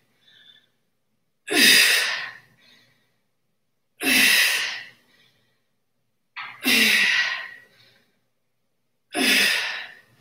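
A woman's forceful exhalations, one for each rep of a dumbbell reverse fly. There are four, each about a second long and about two and a half seconds apart.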